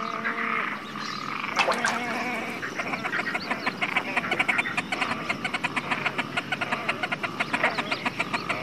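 Great crested grebes calling while mating on their nest: a few short calls, then, from about two and a half seconds in, a fast rattling chatter of clicks at roughly eight to ten a second.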